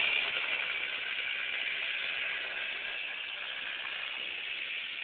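Kid kart's small engine running as the kart drives away, its sound fading steadily.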